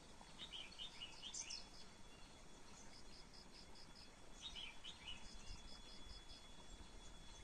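Red-whiskered bulbul singing short warbled phrases, faint, twice: about half a second in and again around four and a half seconds. Between them come quick runs of high, evenly spaced pips. A thin steady high tone sets in about five and a half seconds in.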